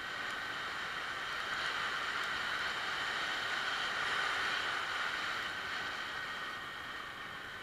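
Yamaha Axis 90 scooter under way, its small two-stroke engine running under a steady rush of wind and road noise that swells a little toward the middle and eases off near the end.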